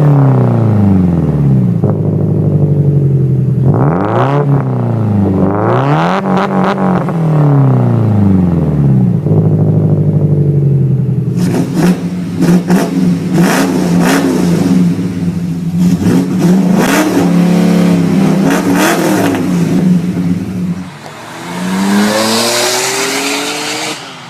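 Scion tC's engine and exhaust revving. The revs fall away, rise and fall twice in quick blips, then hold high and steady for several seconds with sharp crackles, drop off, and climb again near the end.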